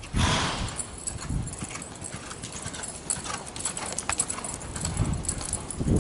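Palomino mare's hooves loping on soft arena dirt: dull, muffled hoofbeats in an uneven rhythm, with scattered light clicks. A loud rushing burst lasting about half a second comes at the very start.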